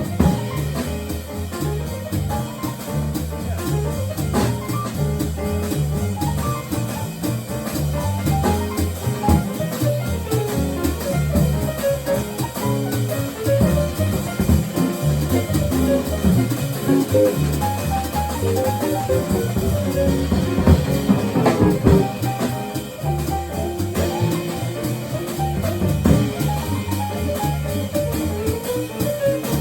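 A quartet of guitar, piano, bass and drums playing a tune together, with a steady drum-kit beat under the melody.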